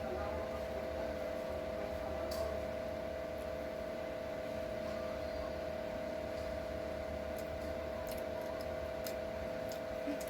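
Steady mechanical hum with a low rumble underneath, and a few faint clicks about two seconds in and again near the end.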